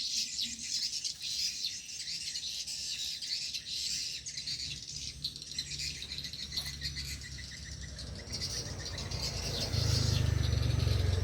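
Small birds chirping and twittering in a dense, high-pitched chorus, with a quick even trill of rapid notes in the middle; the birds are responding to a played-back lure call. A steady low hum comes in loudly near the end.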